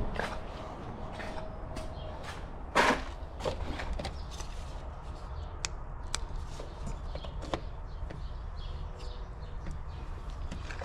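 Handling noises: scattered clicks and knocks, with one louder short noisy burst about three seconds in. No pressure washer motor is running, because its outlet has tripped.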